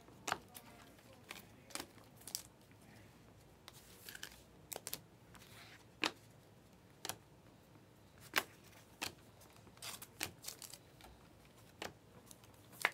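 A hand-held stack of Panini Select basketball trading cards being flipped through one card at a time: irregular, sharp little clicks and snaps as each card slides off the stack, about one a second.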